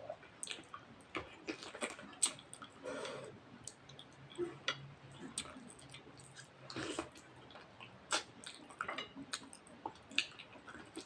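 Close-up eating sounds of a person chewing rice and mutton curry: irregular wet smacks and mouth clicks.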